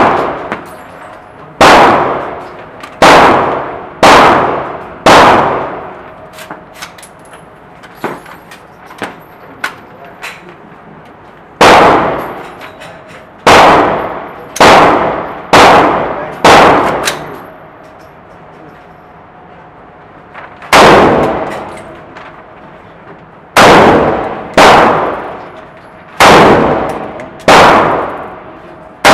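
AR-15 rifle firing single aimed shots, about seventeen in three strings of four to seven with pauses between them, each sharp crack ringing on in the reverberant indoor range. Fainter clicks and pops come in the gaps.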